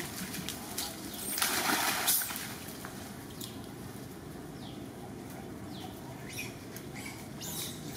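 Splashing and sloshing in shallow muddy rainwater as a young monkey moves through it, one brief burst about a second and a half in. A few faint, short, high chirps follow later.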